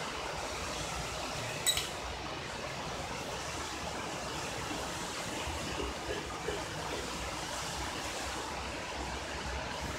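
Steady background hiss, with one sharp click about two seconds in from a small plastic toy being handled, and a couple of faint ticks near the middle.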